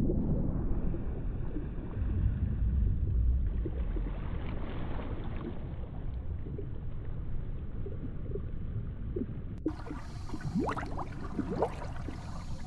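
Underwater ambience: a deep, muffled water rumble, with quick rising bubble gurgles near the end.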